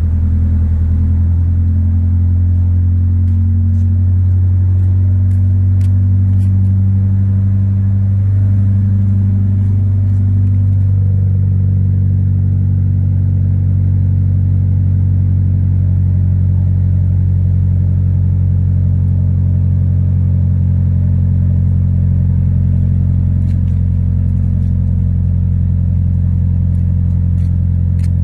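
Honda Civic exhaust, resonator deleted, idling with a steady low drone; the idle settles slightly lower about ten seconds in.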